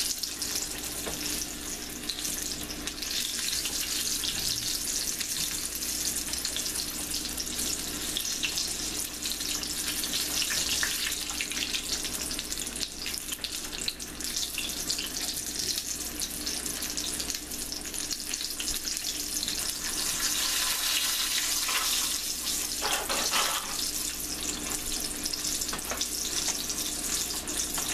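Starch-coated milkweed seedpods deep-frying in a pot of hot oil: a steady, crackling sizzle.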